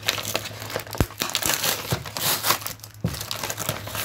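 Brown kraft paper wrapping and tape being torn and crumpled open by hand: a run of irregular crinkles and rips, with a dull thump about a second in.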